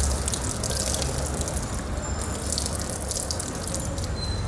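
Water running and splashing irregularly, over a low steady hum.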